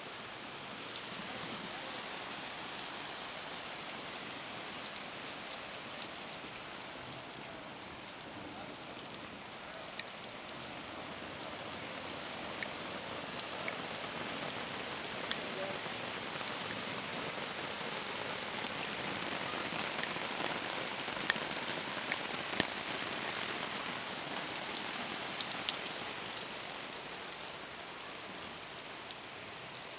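A garden-hose sprinkler sprays water down onto a silicone-coated nylon (silnylon) tarp, making a steady hiss of falling water with scattered sharper drop hits. It grows louder through the middle and eases off near the end.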